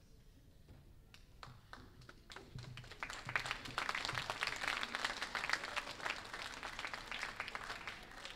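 Audience applause. A few scattered claps begin about a second in and swell into steady clapping from about three seconds.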